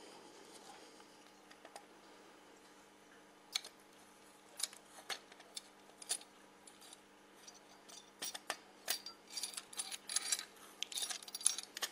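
Light metallic clicks and clinks of a beer shank being fitted and screwed into a counter pressure bottle filler, a few at first and coming quickly one after another near the end.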